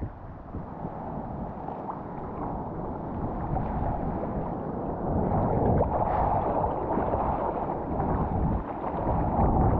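Seawater sloshing and wind buffeting a GoPro's microphone out in the surf: an uneven rush that swells louder about five seconds in and again near the end.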